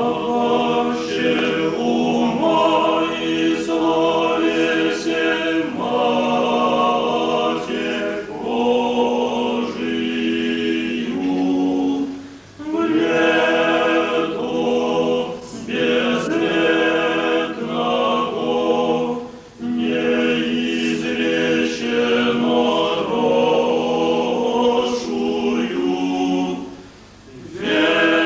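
A cappella church choir singing Orthodox liturgical chant in long sustained phrases, with brief breaks between phrases, twice near the middle and once near the end.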